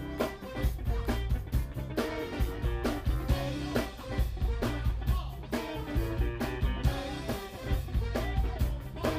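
Live blues band playing: a drum kit keeps a steady beat under electric guitar.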